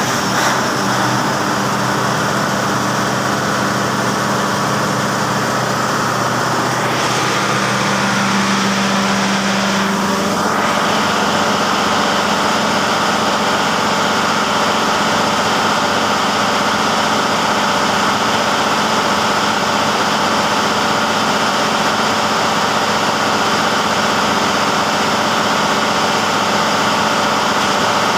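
Diesel generator engine running steadily, its tone shifting about ten seconds in before settling.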